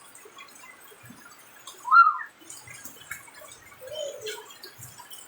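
Faint dripping and splashing of water, with a short high call that rises and falls about two seconds in and a softer, lower call near four seconds.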